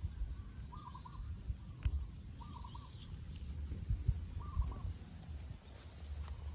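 A bird calls three times, each a short call of quick repeated notes, about two seconds apart, over a low rumbling background with one sharp click.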